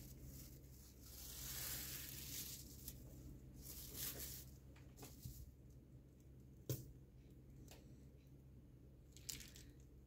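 Plastic sheeting crinkling and rustling as a biscuit-and-cream roll is pressed and shaped inside it, followed by a few faint sharp clicks, the loudest about two-thirds of the way through and another near the end.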